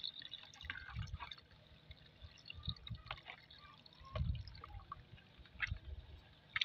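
Water poured into a metal bowl of pumpkin and coconut-milk agar mixture while a metal spoon stirs it: irregular splashing and sloshing with occasional short knocks.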